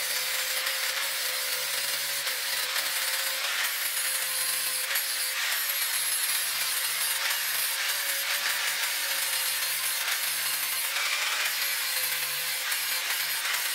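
Handheld angle grinder with an abrasive disc grinding a steel knife blade: a steady motor whine under a continuous grinding hiss.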